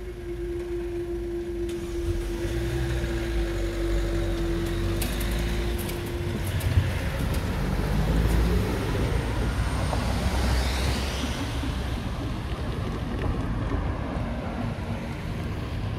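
Vehicles passing with a low rumble, under a steady single tone that stops about six seconds in; a few sharp clicks come around the same time.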